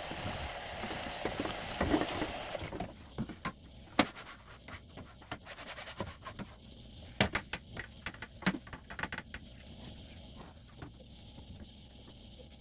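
Water running from a tap, shut off abruptly about three seconds in. Then scattered knocks and clicks as things are handled while washing refrigerator parts.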